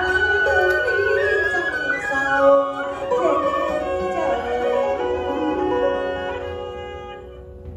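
Instrumental music led by a bowed string instrument playing a gliding melody, fading out near the end.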